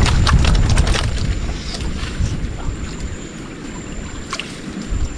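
Wind rumbling on the microphone at first, then water sloshing and splashing as a long-handled scoop net is worked through the water inside a bamboo fish trap, with a few light knocks.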